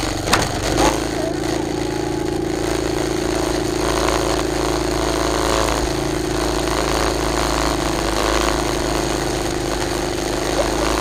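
A mini bike's small engine running at a steady pitch, with a couple of sharp knocks in the first second.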